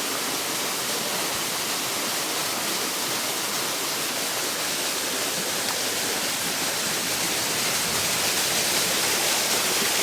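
Steady rush of flowing water, an even hiss.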